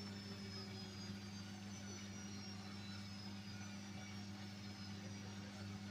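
Beko washing machine running down at the end of a spin, its motor whine slowly falling in pitch over a steady low hum.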